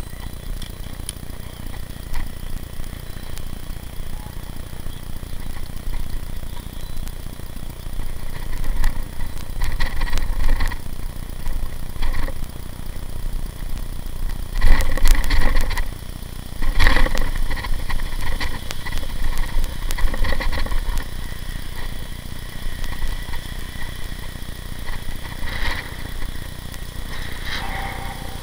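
Steady low rumble of wind and road noise on a bicycle-mounted camera while riding, with a few louder noisy stretches partway through, the loudest about halfway in.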